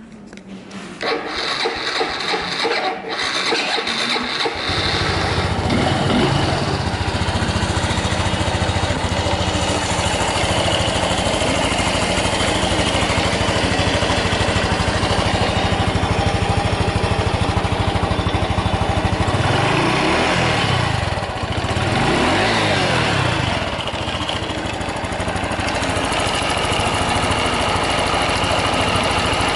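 Honda Super Cub 110's single-cylinder four-stroke engine being cranked for a few seconds, catching about four seconds in and settling into a steady idle. It is revved up and back down twice about twenty seconds in, then idles again. It runs without abnormal noise, as the seller states.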